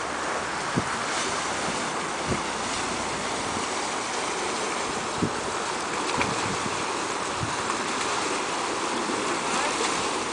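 A 1991 Century Mustang speedboat running past close by: a steady rush of motor and churning wake water, with wind bumping the microphone in a few short thumps.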